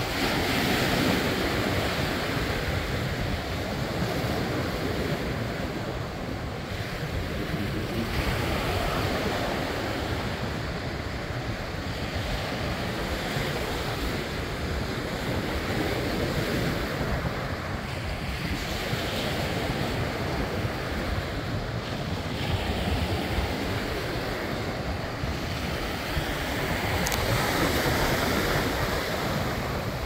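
Small surf breaking and washing up the sand, rising and falling every few seconds, with wind buffeting the microphone in a low rumble.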